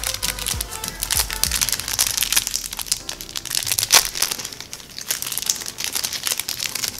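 Clear plastic wrapping crinkling and crackling as it is picked at and pulled off a stylus pen, with a sharper crackle about four seconds in. Background music plays underneath.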